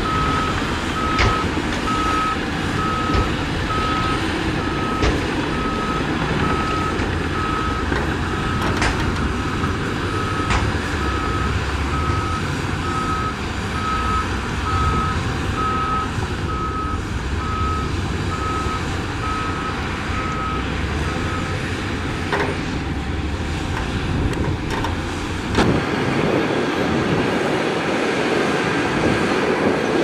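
Heavy earthmoving machinery running, with a reversing alarm beeping about once a second until about two-thirds of the way through. Short knocks come every couple of seconds, and a louder knock near the end is followed by a change in the engine note.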